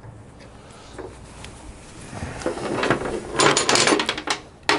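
Metal hand tools and hardware clattering and scraping as they are handled and picked through. It begins about two seconds in and comes in dense clusters of clicks, loudest near the end.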